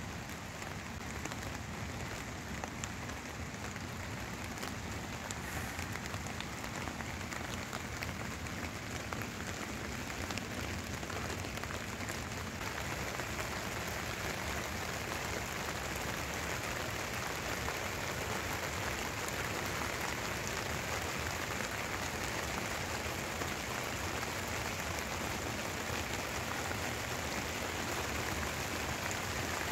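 Heavy rain falling steadily on a tent.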